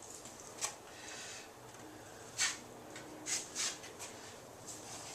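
Drywall knife spreading joint compound along a patch seam: a few short, soft scrapes, with a longer scrape about a second in.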